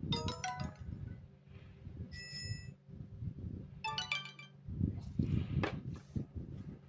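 Lenovo device notification tones: a short electronic chime jingle of quick bright notes at the start, a brief two-note ding about two seconds in, and another quick chime jingle about four seconds in, over a low background murmur with soft thumps.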